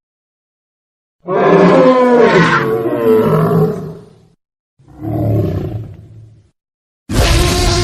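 Monster roar sound effect: a long roar whose pitch bends up and down, then a shorter second roar. Just before the end, a loud, noisy sound with a steady hum cuts in suddenly.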